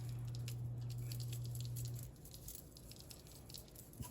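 Kitchen sounds of chicken being seasoned in a pan: scattered light ticks and crackles, under a low steady hum that cuts off about two seconds in.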